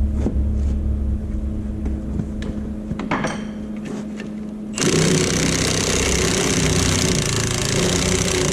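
A steady low hum with a few sharp knocks, then, about five seconds in, loud machinery starts running abruptly and keeps going steadily.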